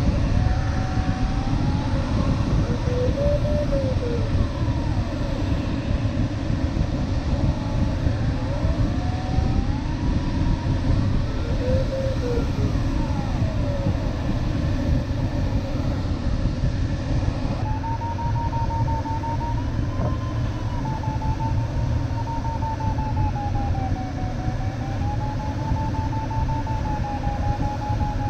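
Steady rush of airflow in the cockpit of an LS7-WL sailplane in flight, with the variometer's audio tone gliding up and down in pitch. About two-thirds of the way in, the tone becomes continuous and rises and falls slowly.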